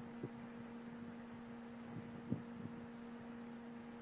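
A steady low electrical hum, with a few soft, short thumps: one about a quarter second in and a small cluster a little past the middle.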